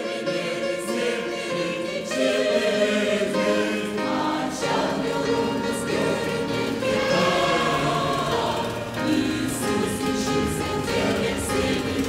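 Background music of a choir singing long held chords.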